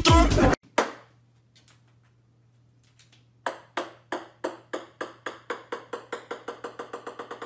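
A small plastic ball, like a ping-pong ball, bouncing on a hard wooden floor, the clicks coming quicker and quieter as it settles. Under it runs a faint steady low hum. Music cuts off about half a second in.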